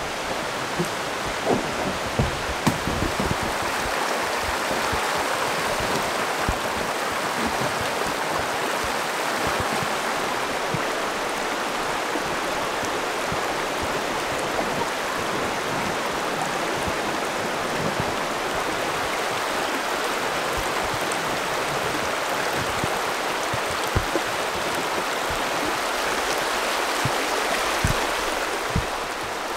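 Steady rush of flowing river water, with a few short low knocks about two seconds in and again near the end.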